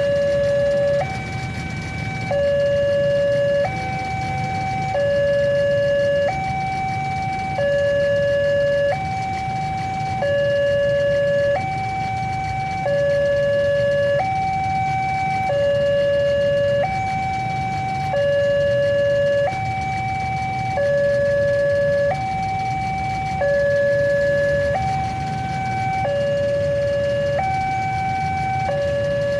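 Railway level-crossing warning siren sounding its slow two-tone alarm, a low tone and a higher tone swapping back and forth about every 1.3 seconds without a break.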